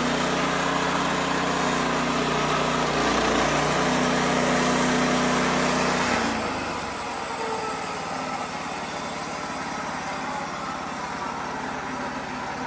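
Wood-Mizer LX55 band sawmill running, its engine steady while the blade saws through a white oak log. About six seconds in the engine note drops away and the sound turns quieter and rougher.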